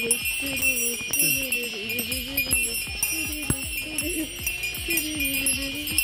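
A bear bell jingling steadily with each running footstep, about three steps a second, over a low hummed voice.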